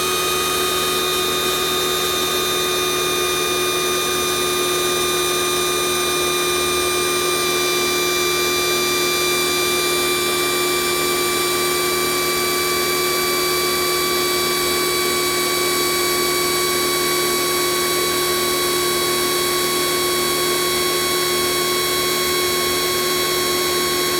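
Kioles 3000 PSI electric pressure washer's motor and pump running continuously with the trigger released, giving a steady high-pitched whine. The motor never cuts off once pressure has built up, which is the defect.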